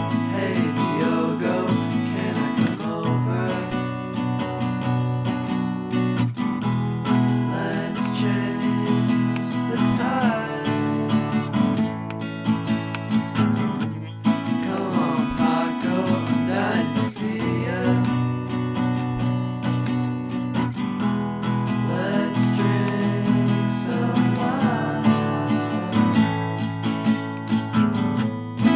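Acoustic guitar strumming chords, playing a song.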